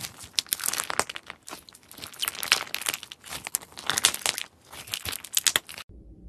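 Flaky, textured slime squeezed and kneaded by hand, giving dense crackling and crinkling in about four waves of squeezing. The crackling cuts off abruptly near the end.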